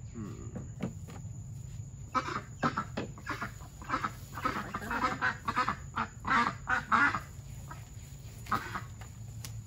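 White domestic ducks quacking: a dense run of short quacks from about two to seven seconds in, and one more near the end.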